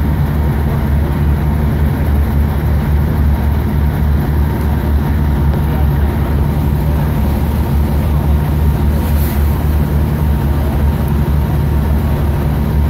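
Steady deep rumble of a large diesel engine running, with a faint short hiss about nine seconds in.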